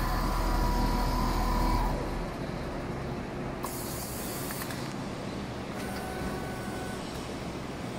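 Computerised flat quilting machine running: a steady mechanical noise from the sewing head and gantry drive, with a whining tone that stops about two seconds in, after which it runs quieter. A short hiss a little past three and a half seconds.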